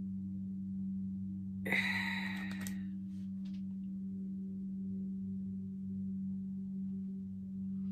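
Steady low electrical hum, with a single breathy sigh about two seconds in.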